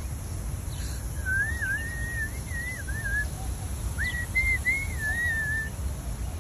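A person whistling a tune in two warbling phrases, the pitch gliding up and down, over a steady low rumble.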